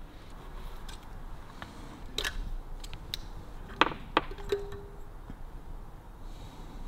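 Small steel parts (washers and hub components) on a motorcycle wheel's star hub being handled and set in place: a few scattered light clicks and clinks, with one brief ring a little past the middle.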